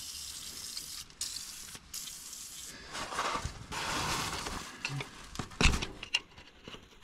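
A seized steering linkage on a Yanmar C25R crawler dumper being worked by hand: rustling and handling noise, then a few sharp metal knocks and clicks about two-thirds of the way in, over a hiss.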